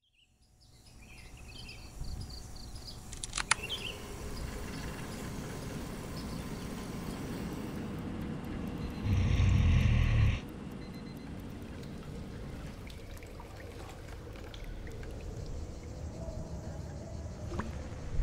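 Outdoor ambient noise fading in, with a sharp click about three and a half seconds in and a loud burst of low, heavy noise lasting about a second and a half near the middle.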